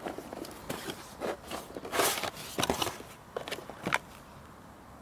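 Cardboard box being opened and its packaging handled: a run of short scrapes and rustles of cardboard, paper and plastic sleeve, loudest about two seconds in, with a last sharp rustle near four seconds.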